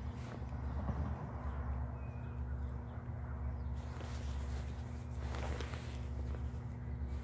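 Steady low drone of an approaching freight train's diesel locomotives, still out of sight, with a short caw from a bird about five seconds in.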